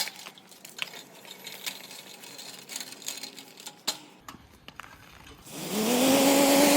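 Knocks, clunks and rattles of a heavy air-resistance exercise bike being lifted and shoved. About five and a half seconds in comes a loud, held yell of strain, rising at its start.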